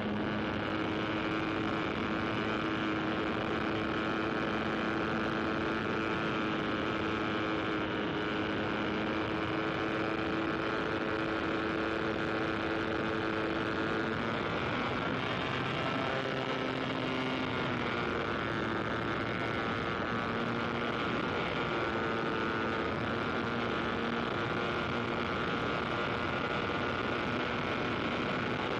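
An aircraft engine droning steadily in flight. Its pitch shifts and wavers about halfway through, then settles again.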